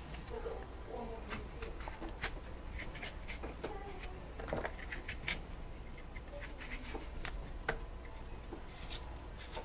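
Kitchen knife cutting a piece of vegetable held in the hand: irregular small clicks and scrapes of the blade.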